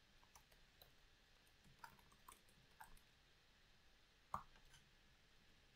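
A few faint, scattered computer-keyboard keystroke clicks in near silence, the loudest about four and a half seconds in.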